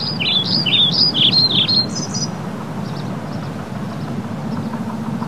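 A bird calling a quick run of short chirps for about two seconds, each note sliding up or down, then falling quiet. A steady low hum runs underneath.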